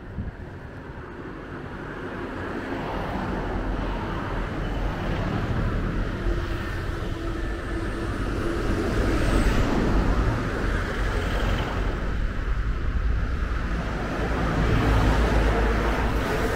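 Road traffic: motor vehicles passing on a main road over a steady low rumble, swelling loudest about halfway through and again near the end.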